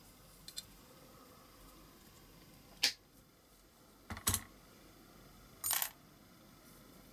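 Small metal clinks and taps of a steel wire pin and pliers against a diecast metal toy-car baseplate: two faint ticks, a sharp clink near three seconds in, a double knock a second later, and a short rattling clink near six seconds.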